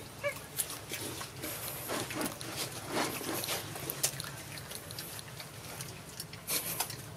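Long-tailed macaques eating and handling food close by: scattered wet clicks and smacks of chewing, with one short squeaky call just after the start.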